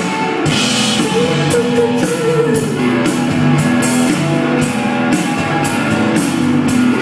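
Rock band playing an instrumental passage between sung lines, with guitar and a drum kit keeping a steady beat.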